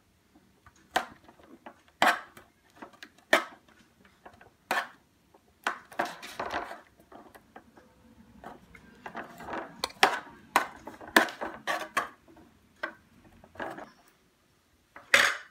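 Metal spoon scraping and clinking against a speckled enamel baking pan as béchamel sauce is spread across its bottom: irregular clicks and scrapes with short pauses, the loudest strokes about ten and fifteen seconds in.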